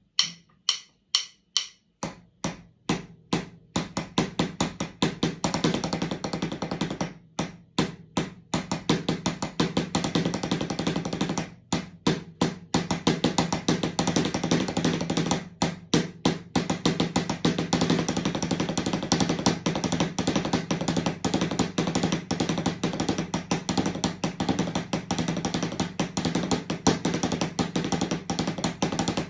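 Wooden drumsticks on a rubber practice pad resting on a snare drum, playing a double-stroke-roll warm-up. It starts with slow, evenly spaced strokes, about two and a half a second, and speeds up over the first several seconds into a fast continuous roll, broken by a few short pauses.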